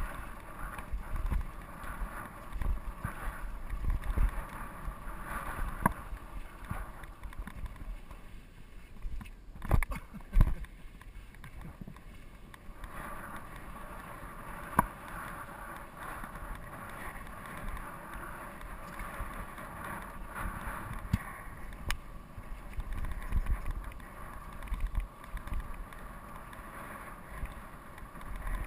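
GT Peace 9'r steel hardtail mountain bike rolling over a rutted dry-dirt singletrack. Wind buffets the camera microphone, the tyres rumble on the dirt, and a few sharp knocks and rattles come as the bike jolts over the bumps.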